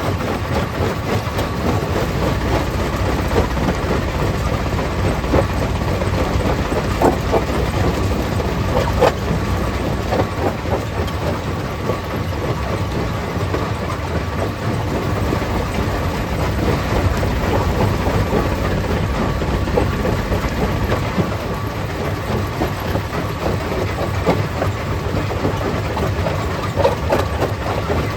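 Stone crusher plant running: a steady heavy mechanical rumble with continuous irregular rattling and knocking of rock being crushed.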